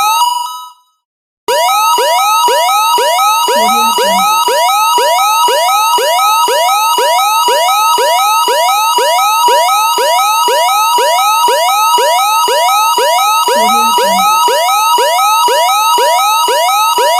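Canadian emergency alert attention signal from a British Columbia alert: a loud, rapidly repeating pattern of rising tones alternating between two pitches. It stops for about half a second about a second in, then starts again.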